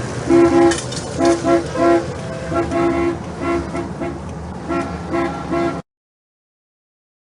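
Vehicle horns honking in a quick series of short toots over steady road and engine noise; the sound cuts off abruptly to silence a little under six seconds in.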